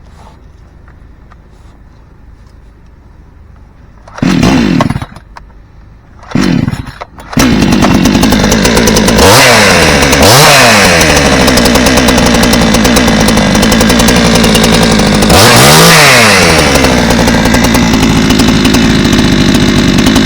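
Vevor 62cc two-stroke chainsaw, its muffler opened up with the catalyst removed, starting. It fires briefly twice, about four and six seconds in, then catches about seven seconds in and runs loud. It is revved up and back down three times.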